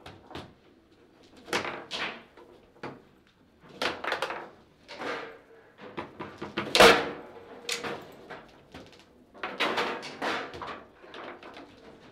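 Table football game in play: an irregular run of hard plastic clacks and knocks as the figures strike the ball and the rods bang against the table, with one loudest sharp hit about seven seconds in.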